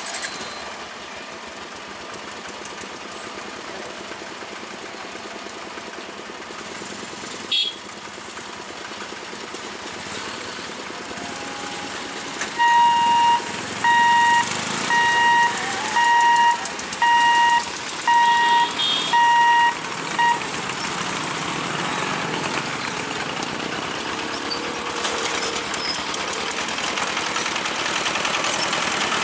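Level crossing lifting barrier's warning beeper sounding about eight evenly spaced beeps, roughly one a second, as the boom is raised. Afterwards the engines of road vehicles crossing the tracks grow louder, with a single sharp click earlier on.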